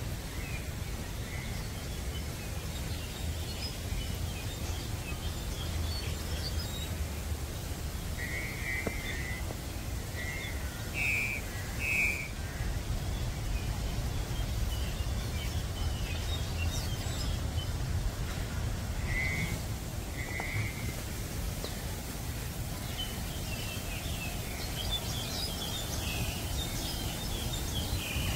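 Short bird chirps now and then, a few in pairs, thickening into a busier run of twittering near the end, over a steady low outdoor rumble.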